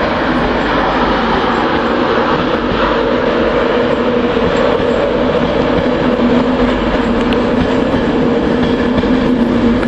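Passenger train from London King's Cross running into the station: a steady drone with a low held hum over rolling noise.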